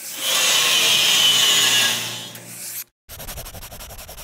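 Logo-reveal sound effect: a loud rasping, scraping noise that fades after about two seconds and cuts off abruptly. After a brief gap comes a quieter, rapidly pulsing scratchy rub.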